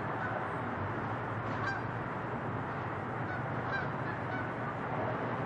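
Steady distant rumble of a Boeing 747's four jet engines climbing out after takeoff, with a few short, high calls from an animal source on top, about two seconds apart.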